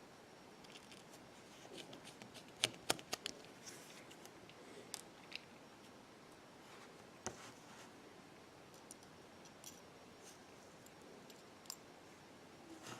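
Small repair tools clicking and tapping on an iPhone 6's internal parts and screws during disassembly: scattered light clicks, with two sharper ones close together about two and a half seconds in.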